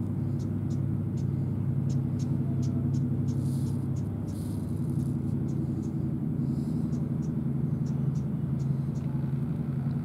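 Steady low mechanical hum, like a running engine or motor, with faint high ticking about three times a second.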